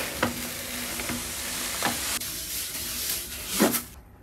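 Granular cat litter pouring from a bag into a plastic litter box: a steady hiss with a few faint ticks of grains, cutting off near the end.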